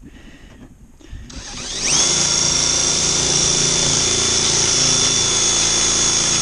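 Cordless drill driving a metal-cutting attachment through a steel roof panel: a few light clicks, then the drill spins up with a rising whine about a second and a half in and runs steadily, cutting the sheet metal.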